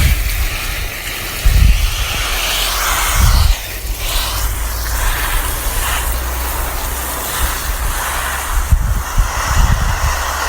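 Garden hose spraying water onto plants: a steady hiss whose tone shifts for a moment about three seconds in. Low gusts of wind buffet the microphone now and then.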